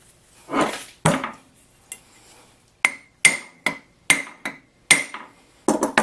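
Metal vise parts knocked and tapped together: two duller scraping knocks, then a run of sharp, ringing metal-on-metal taps, about two to three a second, in the second half.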